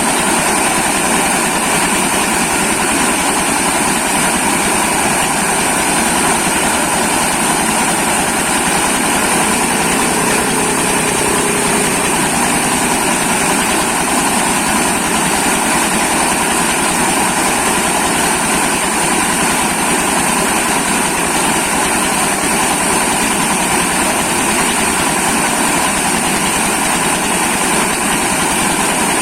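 Corn milling machine running steadily, a loud, even mechanical noise with a constant high hiss and no change in speed.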